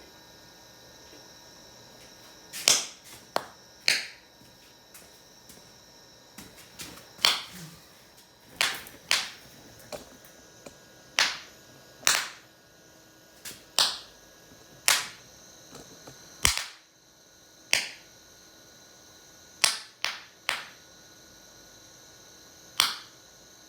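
Small sharp bangs, about eighteen at irregular intervals of roughly half a second to a few seconds, as gas bubbles rising out of a homemade 'bucket of bangs' are ignited by a torch flame.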